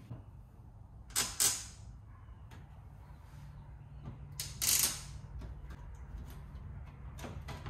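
Handling noises of a plastic exterior refrigerator vent cover on an RV camper's side wall being unlatched: two short loud scraping rustles, about a second in and again near the middle, then a run of small plastic clicks.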